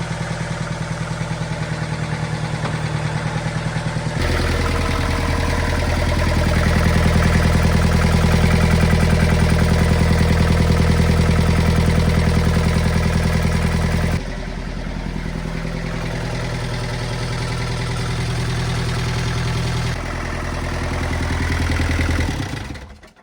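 Diesel engine of a Bobcat 7753 skid steer running. It gets louder at about four seconds in, drops back at about fourteen seconds, and cuts off near the end.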